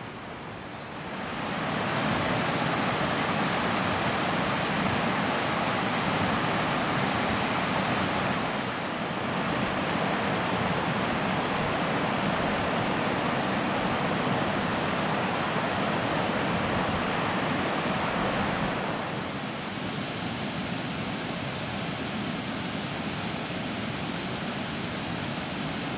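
Steady rushing of flowing water, an even hiss with no distinct events, stepping up in level about a second in and shifting twice more.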